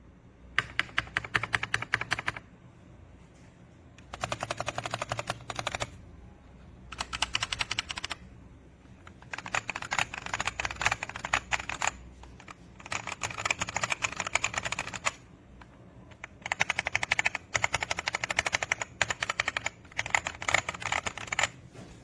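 Typing on a Redragon K617 60% mechanical keyboard: about seven runs of rapid key clacks, each lasting one to three seconds, with short pauses between them.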